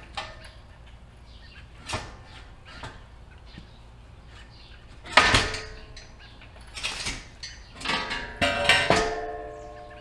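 Heavy steel parts of a homemade sawmill saw head clanking and knocking against the steel frame while the head is moved on an engine hoist. There are a few light knocks early on, a loud clank about five seconds in, and a run of clanks near the end that leaves the steel ringing.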